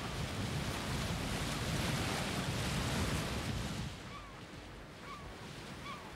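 Sea surf washing and breaking over rocks, a steady rush of water. About four seconds in it drops to a quieter outdoor background with a few short bird calls.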